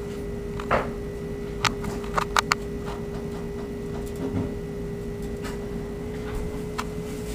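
A steady low hum with a constant tone, broken by a few sharp clicks and taps, most of them between about one and two and a half seconds in.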